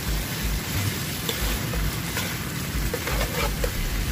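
Tofu squares sizzling as they fry in oil and sauce in a frying pan on a portable butane gas stove, with a few short clicks of metal tongs against the pan.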